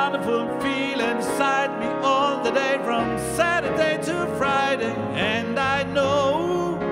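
A man singing into a handheld microphone over backing music, with long held notes that waver in pitch.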